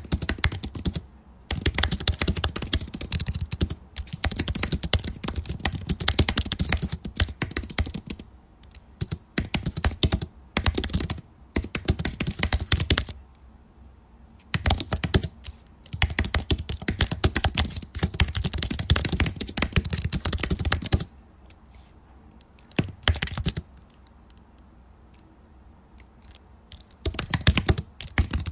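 Typing on a computer keyboard: fast runs of keystrokes with short breaks, then a lull of a few seconds about two-thirds of the way through, broken by one brief run, before the typing starts again near the end.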